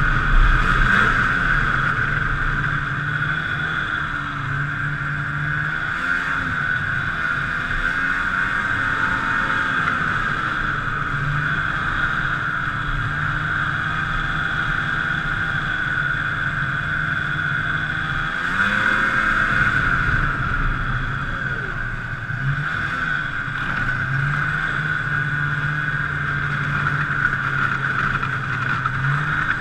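Snowmobile running as it rides along, with a steady high whine over the engine note. The revs rise briefly a little past halfway, then settle back.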